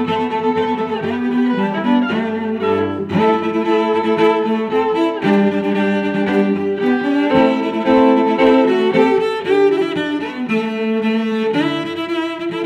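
Background music played on bowed strings, violin and cello, with sustained notes.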